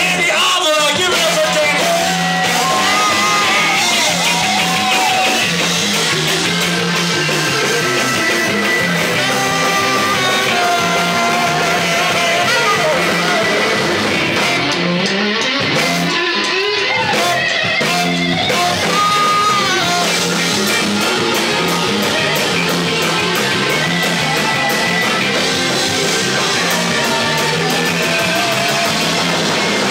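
Live rock band playing loud in a bar: electric guitar, saxophone, drums and keyboard, with a lead singer on a microphone.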